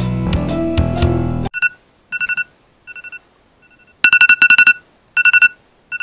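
Rock backing music with guitar and drums cuts off about a second and a half in. A smartphone alarm follows: groups of rapid high beeps, repeating about once a second.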